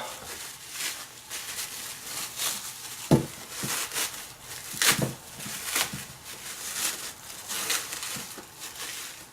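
Packaging being crinkled and torn open by hand to unwrap a lock, in repeated rustling bursts, with a single knock about three seconds in.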